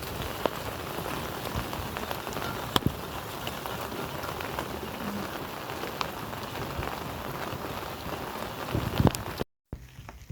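Steady rain falling, with scattered sharp drops ticking now and then. It cuts off abruptly near the end.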